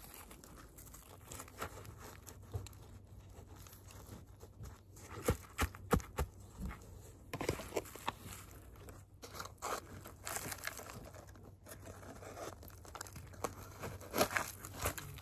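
Gloved hands scooping and sprinkling gritty potting soil while repotting a plant: irregular rustling and crunching, with short louder scrapes about five to six seconds in and again near the end.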